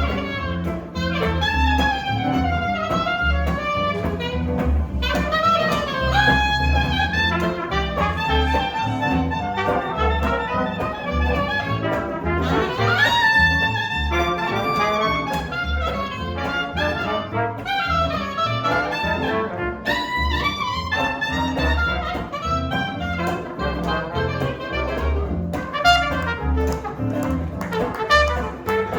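Live jazz band playing an instrumental tune, a brass horn carrying the melody over a steady bass line.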